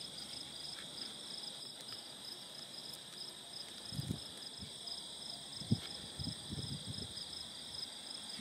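Steady chorus of crickets and other insects trilling in several high continuous tones, one of them pulsing. A few brief low gusts of wind hit the microphone about four and six seconds in.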